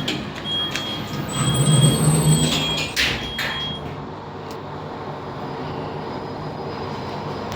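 Fujitec lift doors sliding shut and closing with a thump about three seconds in, while a high electronic beep repeats in short dashes. The lift car then travels down with a steady running hum.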